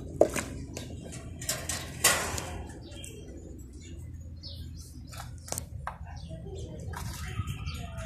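Several sharp clicks and knocks against a wire birdcage, the loudest about two seconds in, with a few short chirps from caged Java sparrows.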